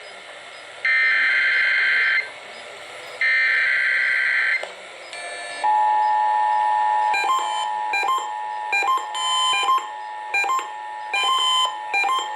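Emergency Alert System monthly test tones on broadcast radio. First come two harsh, buzzy SAME header data bursts of about a second and a half each, with short gaps between them. About halfway through, the steady two-tone EAS attention signal begins, and in the second half irregular short beeps sound over it.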